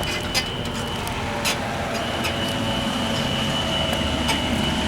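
Building fire alarm sounding a steady high-pitched tone, heard over a constant street-traffic rumble; the tone fades out about half a second in and comes back about two seconds in.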